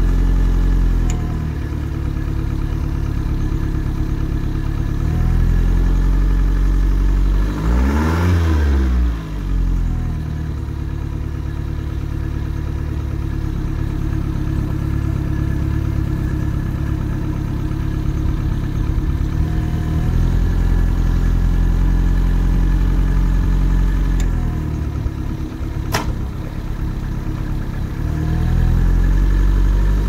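Yamaha 50 hp four-stroke, four-cylinder carbureted outboard running steadily without sneezing, its carburettor mixture screws opened half a turn to cure a lean misfire. About eight seconds in it revs up briefly and drops back. Near the end a sharp click is heard as it is put into gear.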